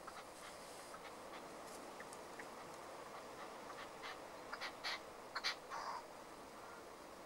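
Red-legged partridge calling: a few faint short chirps in the first half, then a cluster of louder, short, rasping calls about four to six seconds in, over a faint steady hiss of open air.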